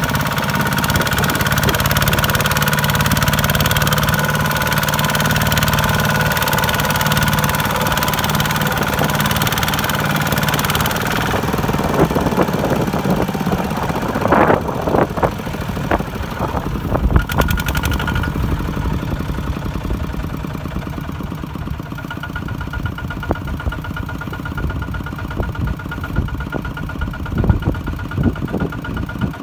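Kubota ZT155 single-cylinder diesel of a two-wheel walking tractor running under load as it pulls a trailer of rice sacks through mud. The engine note drops and softens after about ten seconds, with a few sharp clunks in the middle.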